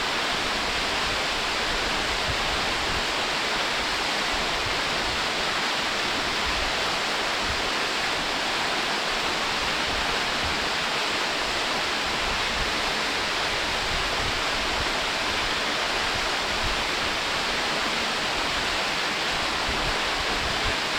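Waterfall: water falling steadily over rock in a constant, even rush.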